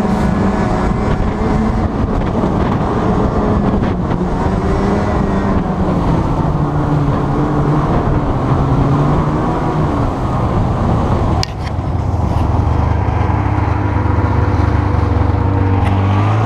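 Small off-road vehicle's engine running hard while it drives through shallow water and slush. The engine note drops about six seconds in, dips briefly with a knock near eleven and a half seconds, then settles into a lower steady drone.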